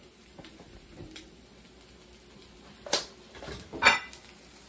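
Metal spatula knocking and scraping against a frying pan as potato cakes are worked loose and turned: two sharp clatters, about three seconds in and again just before four seconds.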